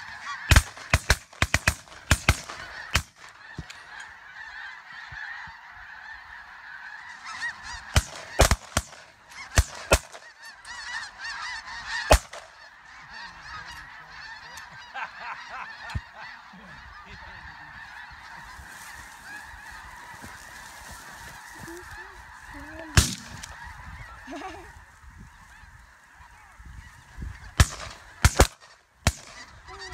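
A large flock of snow geese calling overhead: a dense, unbroken chatter of high-pitched honks. Sharp, loud clicks or knocks cut through it in clusters, several near the start, more around a third of the way in, and again near the end.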